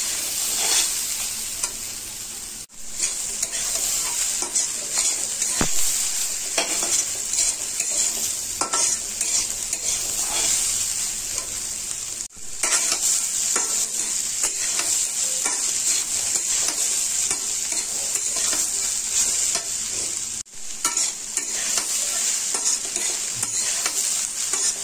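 Grated cauliflower sizzling in oil in a kadai while a metal spatula stirs and scrapes it around the pan, being fried on medium heat until soft. The sound breaks off briefly three times, about 3, 12 and 20 seconds in.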